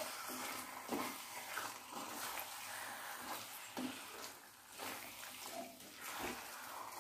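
Spatula stirring raw chicken pieces into thick onion-tomato masala in a metal kadai: soft, wet squelching and scraping strokes roughly once a second over a faint hiss of frying.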